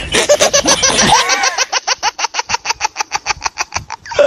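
Laughter that breaks, about a second and a half in, into a fast, even string of short 'ha' pulses, around nine a second, stopping shortly before the end.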